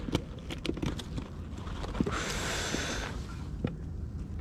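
Gloved hands handling a soft cooler bag and fishing gear: a few light clicks and knocks in the first second, then about a second of rustling, crinkling noise midway, and another knock near the end.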